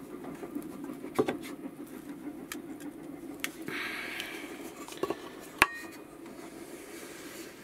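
A thin brass sheet and a wooden block being handled in a small sheet-metal bending jig: scattered light metallic clicks and knocks, a brief scraping rub about halfway through, and one sharper click a little later, over a steady low hum.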